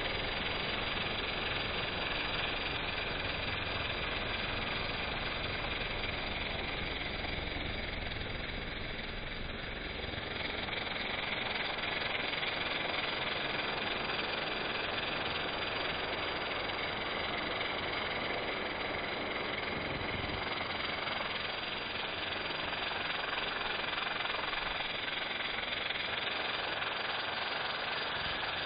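Pressure-washer lance blasting a high-pressure water jet onto stone paving slabs: a steady hiss and spatter of water, with a low rumble underneath that eases about a third of the way in.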